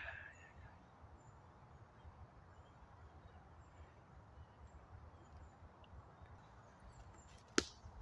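Quiet forest ambience with faint low rustling as a hiker walks through leaf litter carrying the camera. A brief high call at the start, and one sharp click, like a twig snapping, near the end.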